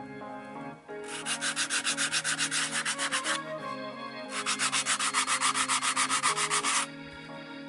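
Hand-sanding the edge of a thin wooden wing made of glued ice cream sticks: two bouts of rapid back-and-forth scratchy strokes, the first about a second in and the second midway, each lasting about two and a half seconds.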